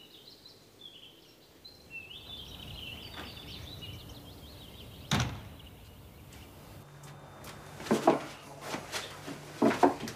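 Small birds chirping outdoors for the first few seconds, then a single sharp knock about five seconds in. Near the end a low steady hum sets in, with several loud clicks and knocks of a door being handled.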